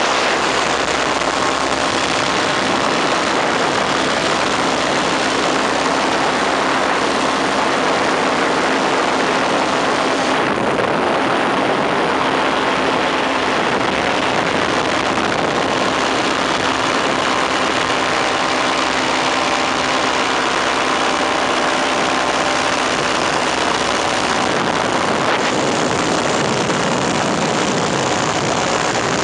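Powered paraglider trike's engine and propeller running steadily in cruising flight, heard from on board, with rushing airflow over the microphone.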